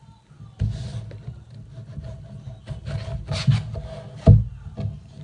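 A subscription box being opened by hand: the lid and box sides scraping and rubbing, with a few knocks, the loudest about four seconds in.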